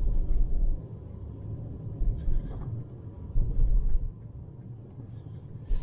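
Low, uneven rumble of a car driving slowly over packed snow, heard from inside the car, swelling louder about two seconds in and again around three and a half seconds in.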